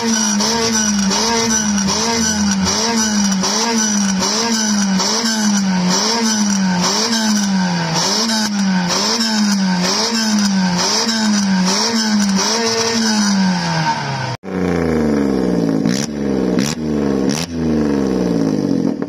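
Red Nissan Micra's engine revved hard and held high through its exhaust, its pitch rising and dropping in a steady rhythm about one and a half times a second. After a cut about 14 seconds in, another car's engine revs in rising sweeps with a few sharp cracks.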